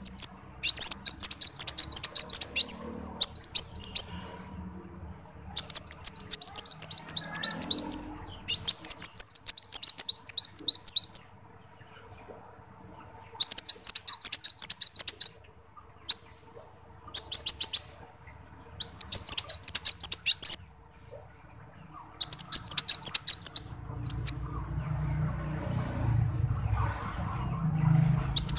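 Male sunbird singing: bursts of rapid, high, thin chirping notes, each burst one to three seconds long, repeated with short pauses between.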